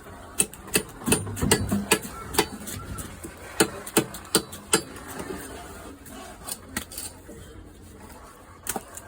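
Sharp chopping strikes of a blade cutting through a katla fish, coming in quick irregular succession for about five seconds, then only a few more.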